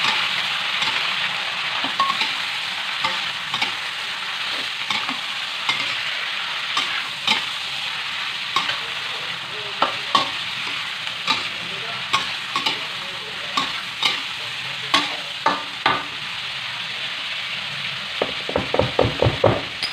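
Sliced pork heart and ginger sizzling in oil in a wok, with a metal spatula scraping and clacking against the pan as the pieces are stirred. Near the end comes a quick run of spatula knocks.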